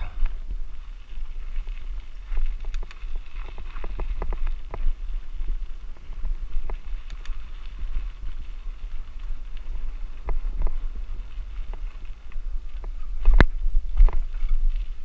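Bicycle rattling and clicking as it rolls over a rough dirt track, under a steady low rumble of wind on a helmet-mounted camera. One sharp, loud knock comes about thirteen seconds in as the bike hits a bump.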